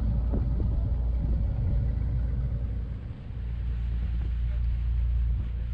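Riverboat engine running steadily: a low, even drone that dips briefly about halfway through.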